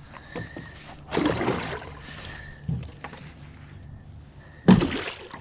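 Handling noises in a small fishing boat while a hooked mudfish is worked off the line: a rough scuffling burst about a second in, a light knock, then a sudden loud knock near the end that dies away quickly.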